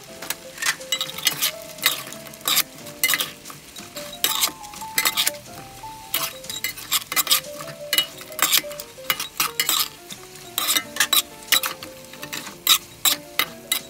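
Metal slotted spatula and ladle scraping and clinking against a wok in irregular strokes as fried catfish pieces are stirred through the simmering curry sauce, with the sauce sizzling underneath.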